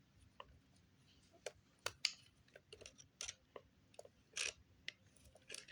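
Faint, irregular small clicks and short scrapes of RC car parts being handled and fitted together during reassembly, with a slightly longer scrape about four and a half seconds in.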